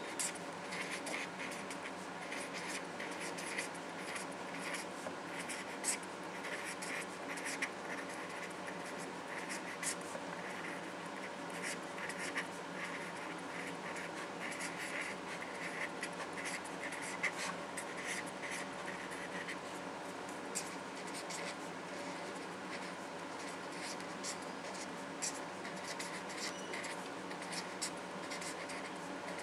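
Someone writing by hand: a pen scratching over a surface in many short, irregular strokes, over a faint steady hum.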